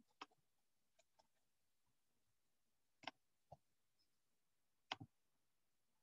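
Near silence, broken by about seven faint, sharp clicks of a computer mouse at irregular intervals, some in quick pairs like double-clicks.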